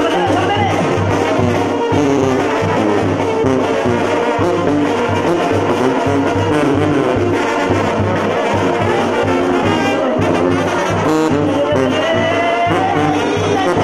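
Live Mexican banda playing: trombones and trumpets carry the melody over a tuba and drums, with a steady low bass pulse underneath.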